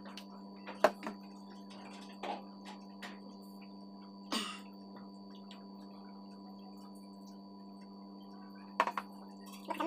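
A steady low hum of a few fixed tones, with several sharp clinks and knocks from steel tumblers and a plastic water bottle handled on a table top, one about a second in, one about four seconds in, and a pair near the end.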